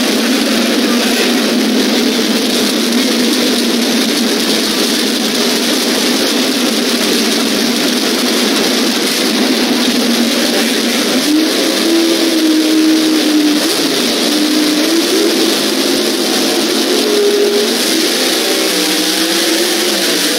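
Two drag racing cars' engines running loudly on the starting line with a steady drone. From about halfway through, the pitch wavers up and down as the revs are raised while staging, and near the end the revs climb as the cars launch.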